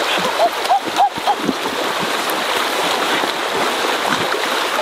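Splashing in a shallow, fast-flowing river as a man runs in and throws himself into the water, over the steady rush of the current.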